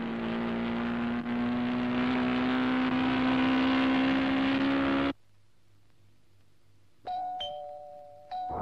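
Small motorcycle engine running steadily as it rides along, its note rising slightly, then cutting off abruptly about five seconds in. After a brief near-silent gap, an electric door chime rings twice near the end, each ring dying away.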